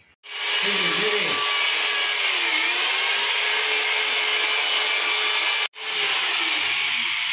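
Corded electric drill boring into a wall, a loud steady whirring grind whose motor pitch dips briefly under load about two seconds in. The sound cuts out for an instant near the six-second mark, then carries on.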